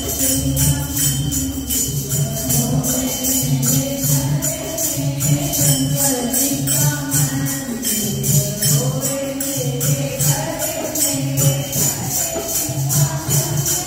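A group singing a devotional song for Ganesha together, with jingling percussion keeping a steady beat.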